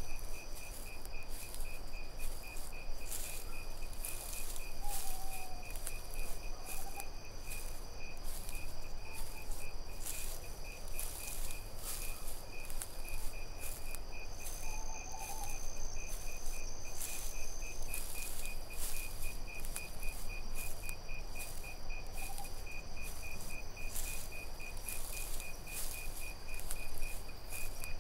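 Night insect chorus: crickets chirping in a steady, even rhythm over a continuous high insect trill. Irregular soft ticking and a low rumble run underneath, and a few faint short calls come through now and then.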